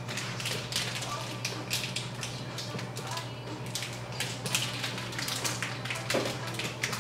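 Scattered light clicks and rustles of a small pack of paint colours being handled, over a steady low hum.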